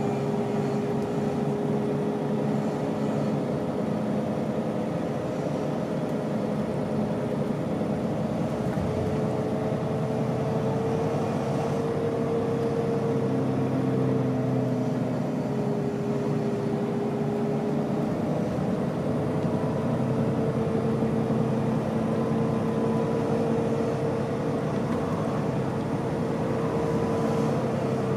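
Iveco Crossway LE bus heard from inside the cabin, its Iveco Cursor 9 six-cylinder diesel running with a steady whine that drifts gently up and down in pitch.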